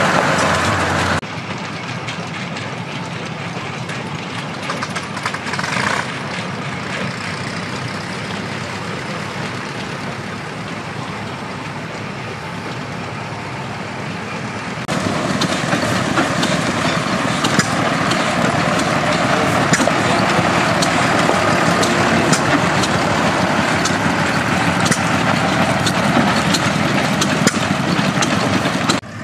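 1988 International ACCO 1850D fire truck's diesel engine idling steadily. It drops in level about a second in, stays quieter until about halfway through, then comes back louder with sharp ticks over the idle.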